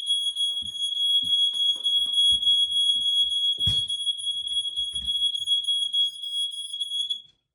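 Smoke alarm sounding a steady, shrill, high-pitched tone, set off by smoke from water poured onto a hot dosa griddle; it cuts off suddenly near the end. Low thuds throughout and a sharp knock about three and a half seconds in.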